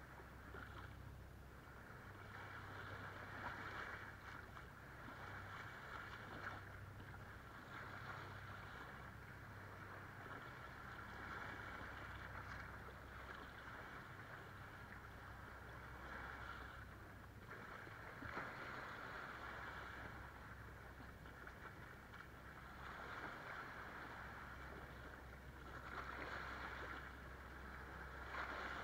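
Small waves washing in over rocks and sand at the shoreline, swelling and falling back every few seconds.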